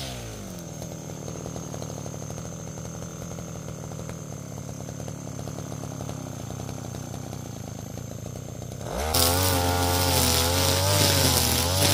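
STIHL FR3001 backpack brush cutter's 32cc two-stroke engine drops from full throttle to idle right at the start and idles steadily. About nine seconds in it revs back up and runs at high speed.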